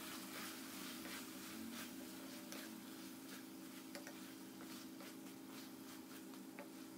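Spatula stirring masala-coated chicken in a steel kadai: soft scrapes and irregular light clicks against the pan over a faint sizzle, with a steady low hum underneath.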